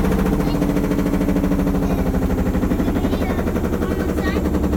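Maytag Neptune front-load washing machine spinning, loud and shaky, its drum knocking and rattling in a rapid steady rhythm over a motor hum. The pillows in the drum are the cause of the noise.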